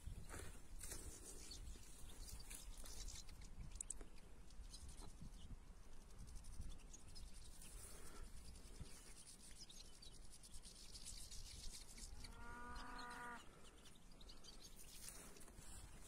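A single distant livestock call, lasting about a second and slightly wavering in pitch, about twelve seconds in, over a low steady background rumble.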